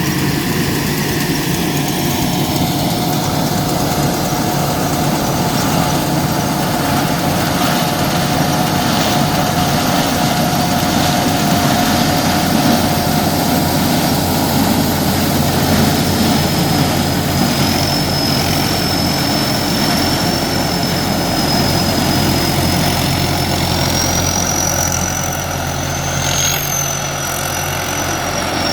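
Engine-driven corn sheller machine running steadily, with a thin whine over the running noise that turns higher-pitched in the second half. The level dips slightly a few seconds before the end.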